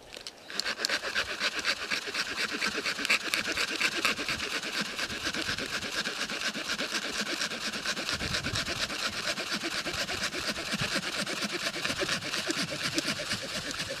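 Dead log being hand-sawn with a Bosch T344DP HCS wood saw blade: rapid, even back-and-forth rasping strokes start about half a second in and keep a steady pace.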